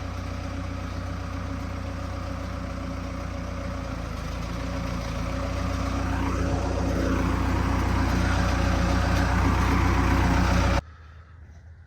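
Telehandler engine running steadily while lifting a pipe, growing louder over several seconds, then cutting off abruptly near the end.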